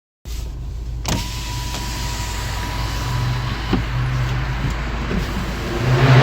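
A car's engine running steadily, with a click about a second in and a louder rush of noise near the end.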